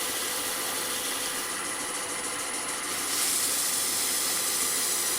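Wood lathe running slowly, at about 500 rpm, with a steady hiss of abrasive paste being rubbed onto the spinning iroko; the hiss gets louder about three seconds in.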